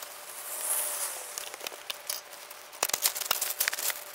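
Everbilt house wrap rustling and crinkling as the sheet is unrolled and pressed against the wall, with a dense run of sharp crackles starting near three seconds in.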